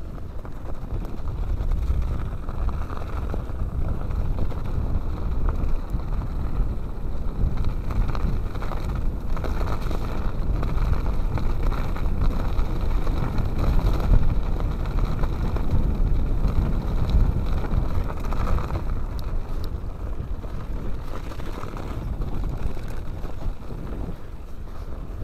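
Mountain bike riding over a snowy, rutted track, with the bike rattling over bumps, under steady wind rumble on the microphone.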